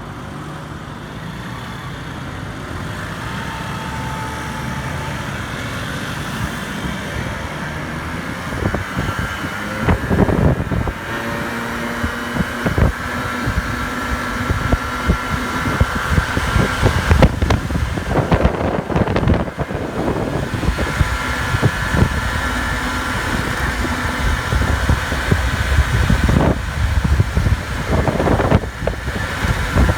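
Several small 50cc scooter engines running together, getting louder over the span, with irregular rushes of noise about halfway through and again near the end.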